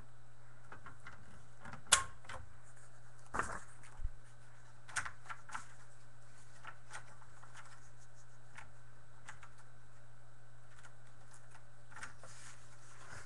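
Scattered sharp clicks and taps, the loudest about two seconds in and most of them in the first six seconds, over a steady low hum.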